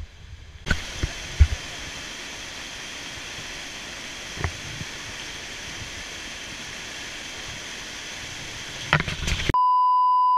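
Rushing water of a small waterfall cascading over rocks, a steady hiss broken by a few sharp thumps. Near the end it cuts to a loud, steady test-tone beep, the kind that goes with TV colour bars.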